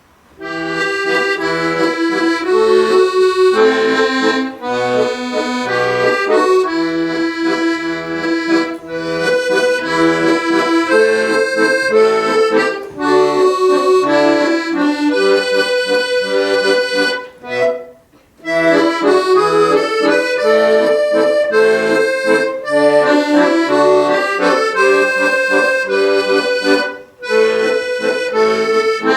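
Solo accordion playing a waltz: a singing right-hand melody over a left-hand bass-and-chord accompaniment. The music breaks off briefly a little past halfway, then resumes.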